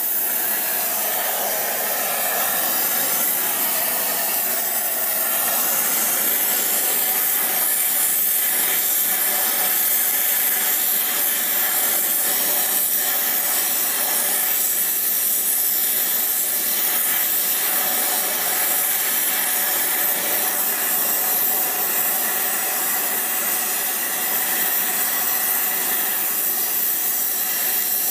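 Flame-spray gas torch hissing steadily as it sprays metal powder onto a worn steel shaft, building up the worn area.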